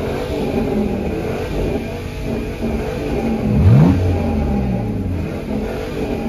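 Dodge Charger's engine revving, with one quick rising rev about three and a half seconds in, the loudest moment.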